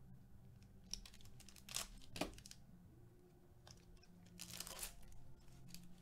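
Foil wrapper of an Upper Deck SP Authentic hockey card pack being torn open and crinkled: two short rips about two seconds in, then a longer tear around four and a half seconds in.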